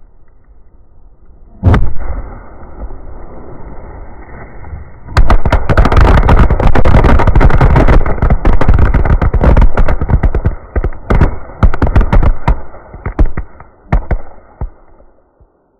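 Pyrotechnics going off: one sharp bang, then a steady hiss, and from about five seconds in a rapid string of firecracker bangs that thins to scattered pops near the end.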